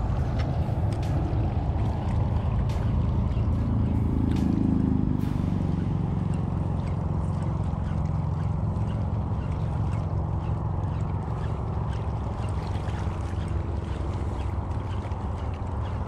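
Boat motor running on the water, a steady low drone whose pitch bends up and back down about four to five seconds in.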